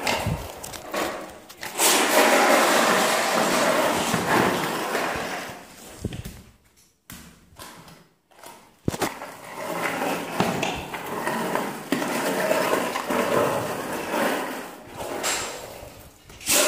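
Skateboard wheels rolling over a tiled floor in two long runs, with a few sharp clacks of the board against the tiles, the loudest near the end.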